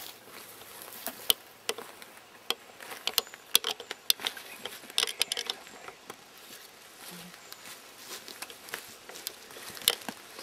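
Footsteps moving slowly through forest undergrowth: irregular snaps and crackles of dry twigs and deadfall underfoot, with rustling of leaves and brush.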